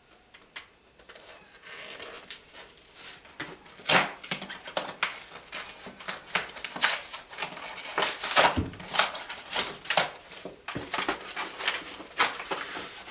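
Paper envelopes being torn open and handled: a run of crackling rips and rustles, the loudest about four seconds in and again about eight and a half seconds in.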